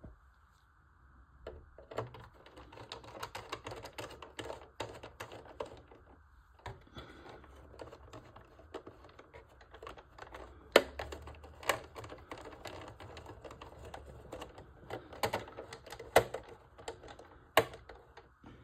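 Small self-tapping screws being driven by hand into a plastic model part: irregular clicking and creaking from the screwdriver and screw, with a few sharper, louder clicks.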